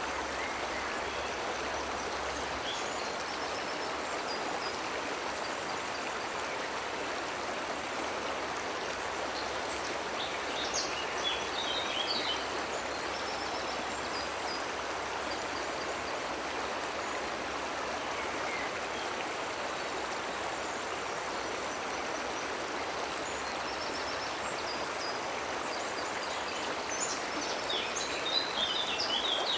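Steady rush of water from a cascading waterfall and stream. Short bird chirps come twice, about a third of the way in and again near the end.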